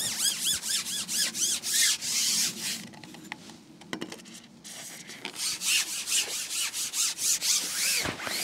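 A carbon fishing pole being pushed out hand over hand, its sections rubbing against the hands and the pole rest in quick rhythmic rasping squeaks. The squeaks come in two runs with a pause about halfway, and there are a few sharper knocks, the strongest near the end.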